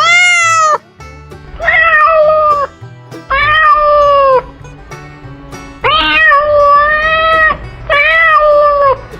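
Domestic cat meowing five times in long, drawn-out calls, the first one rising sharply in pitch and the fourth the longest.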